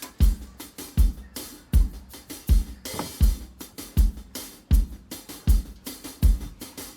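Background music: a steady drum-kit beat, the kick drum about every three-quarters of a second with snare and hi-hat between.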